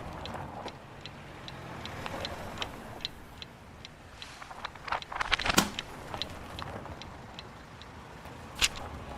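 Foley sound effects: a run of sharp, fairly regular ticks, about two or three a second, over a faint low hum. A louder cluster of clattering knocks comes about five and a half seconds in, and one sharp click near the end.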